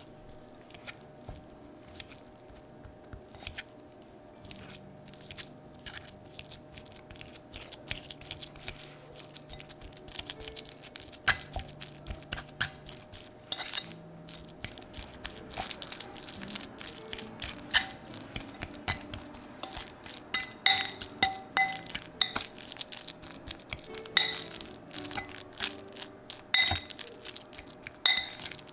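Banana being mashed with a fork in a bowl: soft squashing with the fork tapping and clinking against the bowl, sparse at first, then quicker and louder through the second half.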